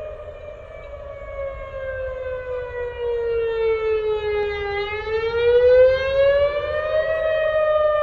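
Outdoor tornado warning siren wailing: one long tone that sinks slowly in pitch, bottoms out a little past halfway, then rises again, growing louder toward the end.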